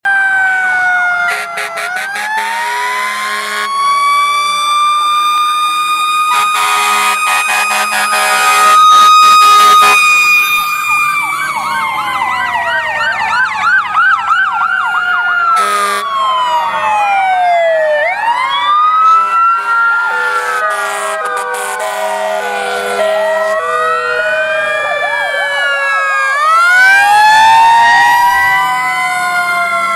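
Several emergency-vehicle sirens sounding at once. Slow wails rise and fall over a few seconds each, overlapping with a fast warbling yelp and a stepped two-tone hi-lo pattern.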